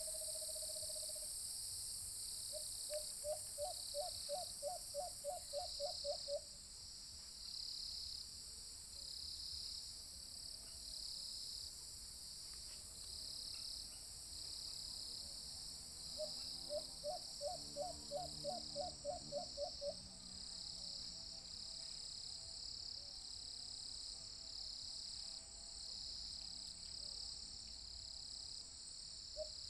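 White-eared brown dove calling: runs of about ten quick rising coo notes, each run lasting two to three seconds, heard twice with a third run starting near the end. A steady, regularly pulsing insect chorus goes on underneath.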